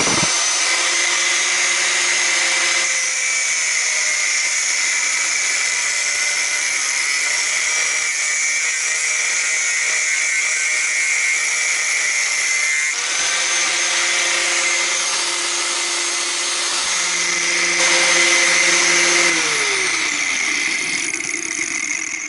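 Angle grinder with a cutting disc slicing through a metal tube, a steady high-pitched whine over gritty cutting noise. Near the end the trigger is released and the motor winds down, its pitch falling until it stops.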